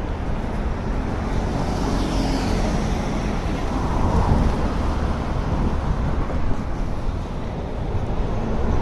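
Steady city road traffic: cars and other vehicles running along a busy street.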